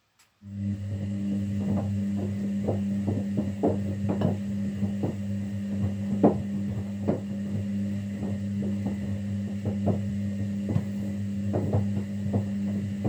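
Kunft washing machine starting up mid-cycle: after a click, a steady low hum begins suddenly and runs on, with irregular knocks and taps over it.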